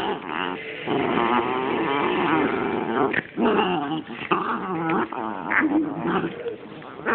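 Puppies play-fighting, growling at each other in long, wavering runs broken by short pauses.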